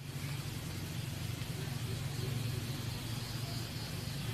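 A steady low mechanical hum under an even hiss, unchanging throughout.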